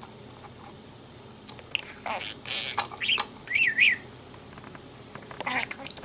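Pet budgerigar chattering: a run of short chirps and warbling notes starting about two seconds in, with two quick up-and-down whistled notes near the middle and one more short call near the end.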